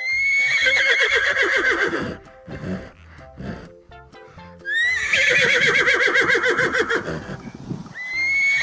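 Horse whinnying: two long quavering whinnies, each rising at the start and then trembling downward, with a third beginning near the end. Light background music plays under them.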